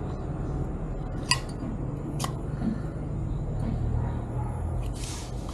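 Metal exhaust parts and tools being handled, with two sharp metallic clinks over a low steady hum and a short hiss near the end.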